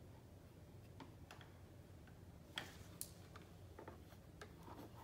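Faint, irregular small plastic clicks and taps as a toy spatula works against a plastic cup on a Num Noms lip gloss maker toy, a couple of them sharper about halfway through; otherwise near silence.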